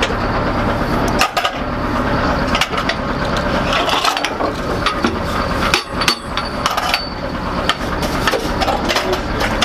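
Metal clanks and knocks of the crew working the breech and loading gear inside an M109A7 Paladin howitzer's turret, over the steady low drone of the running vehicle.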